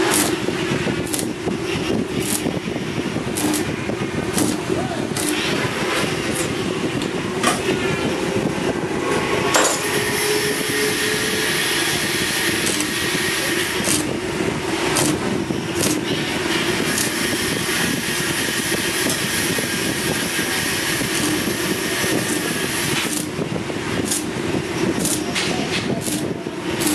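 Stick (shielded metal arc) welding on a steel frame: the electrode's arc gives a steady crackling sizzle, broken by sharp pops.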